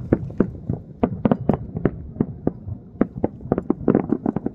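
A rapid, irregular string of sharp explosive bangs, about twenty of them, crowding closer together near the end.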